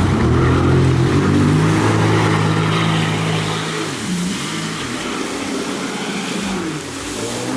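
Jet ski engine revving hard as the craft accelerates away across the water, with the rush of spray from its jet. The pitch holds high, drops for a moment about four seconds in, and climbs again near the end.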